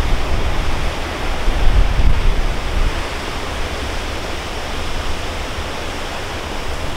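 Storm-force wind buffeting the microphone: a steady rushing noise with uneven, gusting low rumbles.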